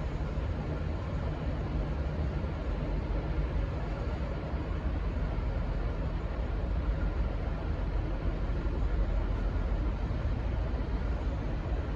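Steady low rumble of a diesel locomotive running at the platform, with no horn sounding.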